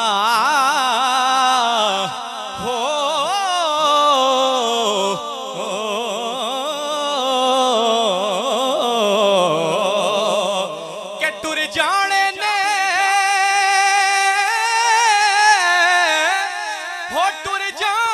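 A man singing a Punjabi Sufi kalam into a microphone in a slow, melismatic style, his held notes wavering with heavy ornamentation. About halfway through he climbs to a higher register and holds long notes.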